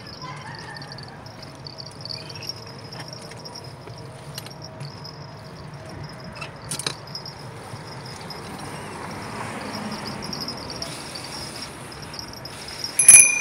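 Bicycle riding along: steady rolling and wind noise with small rattles and clicks. Near the end a bicycle bell rings once, sharp and bright, fading over about half a second, a warning to pedestrians just ahead.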